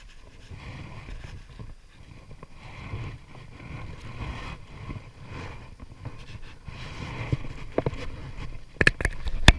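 Wind buffeting the microphone in an uneven low rumble. A few sharp clicks come near the end.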